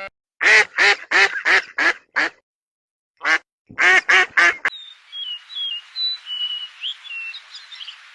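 A duck quacking: a run of six quacks, a pause, a single quack, then four more in quick succession. About two-thirds of the way in this cuts to small birds peeping: short, thin, high calls over a steady hiss.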